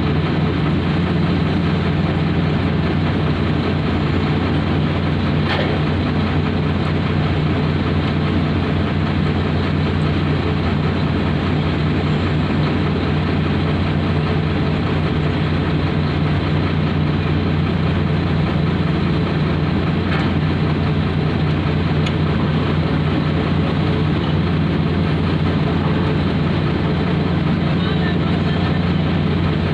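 Heavy diesel engines of a Komatsu 450 hydraulic excavator and an Eicher tipper truck running steadily while the excavator loads the truck: a constant low drone with no rise or fall. Twice a faint knock stands out above it.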